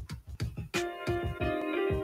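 Background music: a beat with a regular kick drum, and a held chord that comes in about a second in.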